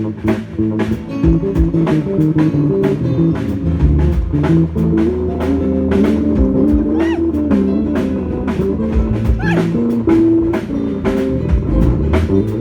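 Live band playing: a drum kit keeps a steady beat of hits under a moving bass line and guitar or keyboard notes.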